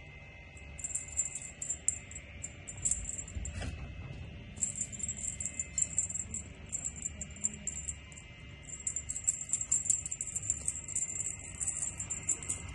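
Small bell on a cat wand toy jingling in quick shaken bursts, with short pauses, as kittens bat at it. A faint steady high tone runs underneath.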